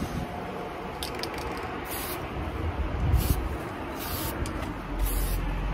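Aerosol touch-up spray paint can hissing in several short bursts, spraying a second coat onto an aluminium door handle.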